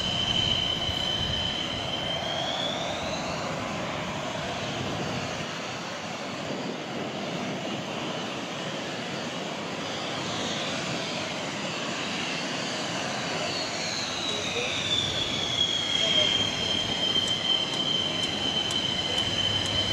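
JF-17 Thunder fighter's single Klimov RD-93 turbofan running as the jet taxis: a high engine whine over a broad jet rush. About three seconds in the whine rises in pitch and fades. It returns about fourteen seconds in and slides back down to its earlier pitch.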